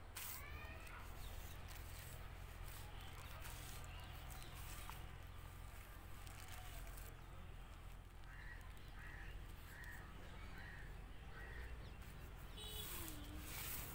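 Quiet outdoor background with a steady low hum; about eight seconds in, a bird calls five times in quick, even succession.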